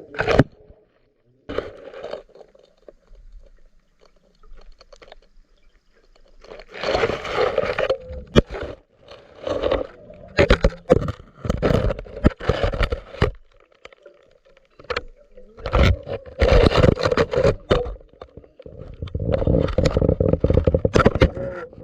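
A submerged GoPro in its housing, picking up surges of water rush with scraping, clicks and knocks against the case as it is moved. The noise comes in several bursts of a few seconds each over a faint steady hum.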